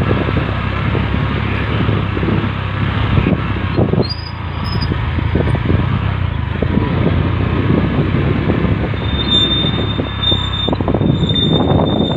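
Wind buffeting the camera's microphone outdoors, a loud, steady, rough noise, with a faint high tone coming and going in the last few seconds.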